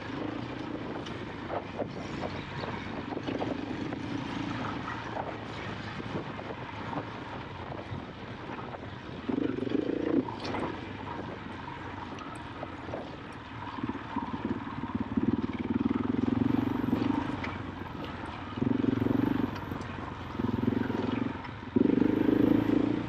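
KTM 500 EXC-F enduro bike's single-cylinder four-stroke engine running at low revs, with the throttle opened in short bursts several times in the second half, each a louder spell of a second or so. Light clicks and knocks through the first third.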